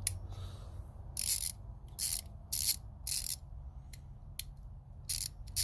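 Hand socket ratchet, a low profile ratchet, being swung back and forth: a run of short rasping bursts of pawl clicks, roughly two a second.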